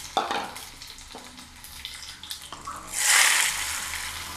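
Chopped onion and garlic going into hot oil in which mustard seeds and fenugreek have already spluttered. A few light knocks come first, then a loud burst of sizzling about three seconds in that slowly dies down.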